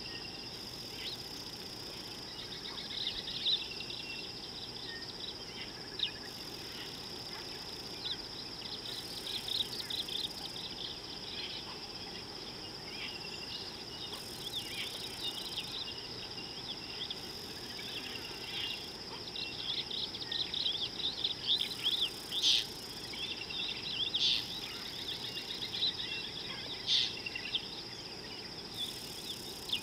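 A steady, high-pitched insect trill runs throughout. Many short bird chirps and calls sound over it, with a few louder chirps in the second half.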